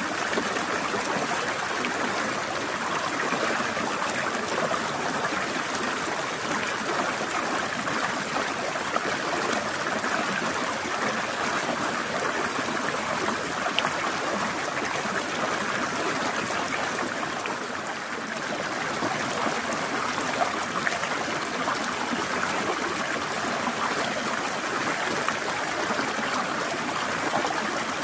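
Forest stream flowing steadily over rocks, a continuous trickling and splashing rush of water with fine bubbly detail; the flow eases briefly about two-thirds of the way through.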